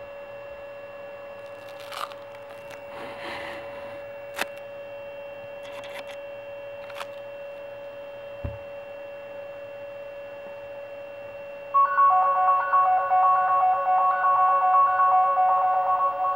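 A steady electrical whine with a few faint clicks. About twelve seconds in, a much louder, rapid run of electronic beeping tones starts, switching quickly between a few fixed pitches.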